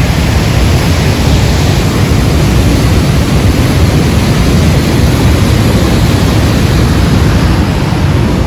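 Loud steady roar of Niagara Falls' falling water, with wind buffeting the microphone.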